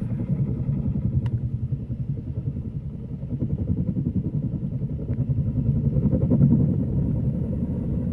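Helicopter hovering overhead, its rotor beating in a fast, steady, low throb with the engine running under it, as it takes up the weight of a slung light airplane. The throb grows a little louder about six seconds in.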